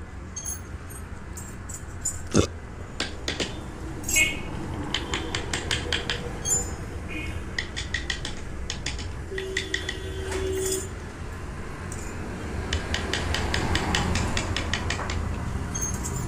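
Wood-carving chisel being tapped into wood with a mallet: a run of light, irregular taps and clicks as stop cuts are set around the design so the adjacent carved piece won't break when the band is cut.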